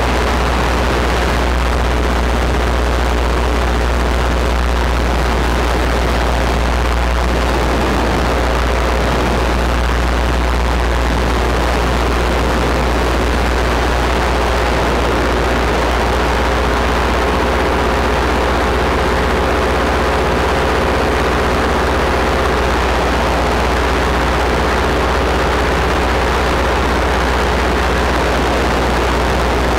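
Paramotor engine and propeller running steadily in flight: a loud, constant drone with no change in power.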